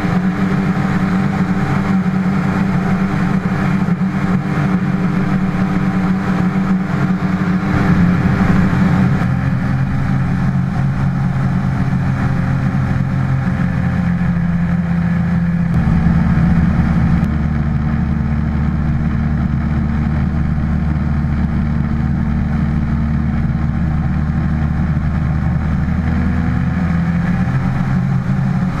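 Hovercraft engine and fan running steadily while the craft cruises over water; the engine's tone shifts abruptly a few times.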